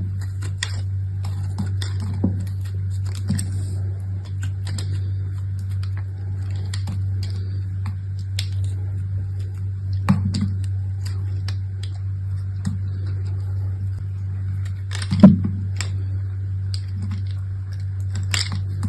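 Soap being unpacked by hand: packaging rustling and crinkling with scattered small clicks and taps, and one louder knock about fifteen seconds in, over a steady low hum.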